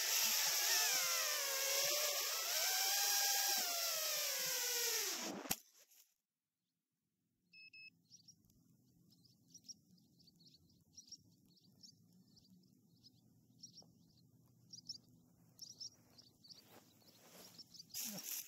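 Heavy 6S FPV racing quad's motors and propellers whining over a strong hiss, the pitch rising and falling with throttle. About five and a half seconds in it crashes into the grass with a sharp knock and the motors cut out. After a brief dropout comes a short beep, then faint outdoor background with scattered high chirps, and handling noise near the end as the camera is picked up.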